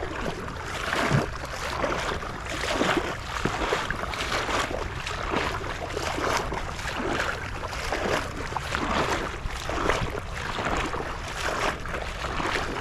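Wading through shallow marsh water: legs swishing and sloshing in a loose rhythm of about one stride a second, with wind rushing over the microphone.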